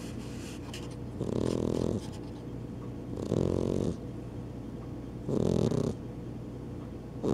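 A sleeping flat-faced cat snoring in a steady rhythm, one snore about every two seconds: three snores, with a fourth starting near the end.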